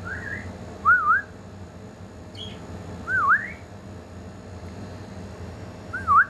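Pet bird giving three loud, clear whistles, each a quick dip and rise in pitch, about a second, three seconds and six seconds in, with a fainter chirp at the start.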